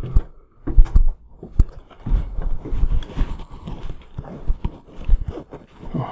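Footsteps and scuffs of people walking over a hard floor, a run of irregular thumps and knocks.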